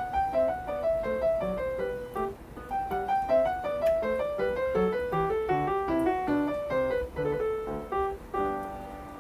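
Background piano music: a steady stream of quick notes, with runs that move down and up in pitch.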